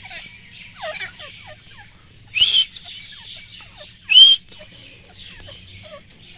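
Grey francolin calling: two short, loud, shrill calls about two and a half and four seconds in, over fainter chirping and short falling notes throughout.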